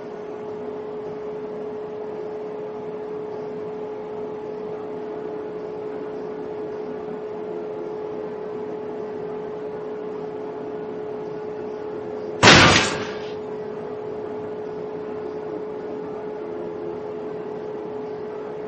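Tanning bed running with a steady hum, its lamps lit and fans up to speed. About twelve seconds in, one loud bang as the sunbed's canopy slams down, dying away within half a second.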